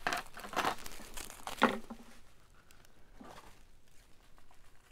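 Packing wrapping crinkling and rustling as it is handled, busiest in the first two seconds with a sharp crackle about a second and a half in, then dropping to faint rustles.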